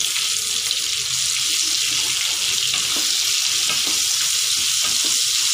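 Freshly added chopped onion sizzling loudly in hot mustard oil in a kadai, stirred with a wooden spatula that scrapes and knocks against the pan.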